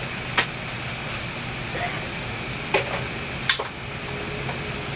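Steady hum and hiss inside an Airbus A380's passenger cabin, broken by three sharp clicks, the first just under half a second in and the other two close together past the middle.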